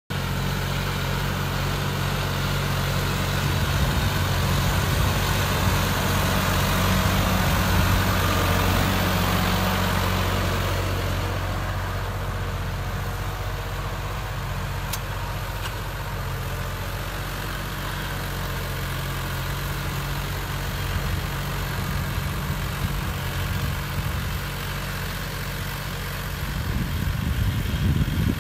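John Deere 5405 tractor's diesel engine running steadily while pulling a tined cultivator through the soil. The engine hum grows fainter about a third of the way in and swells louder again near the end.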